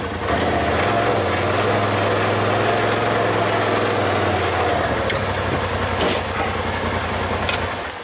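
Polaris RZR Turbo S side-by-side's turbocharged twin-cylinder engine running at low idle while the machine creeps slowly, a steady low hum heard from the driver's seat, with a slight change in tone about a second in and again near six seconds.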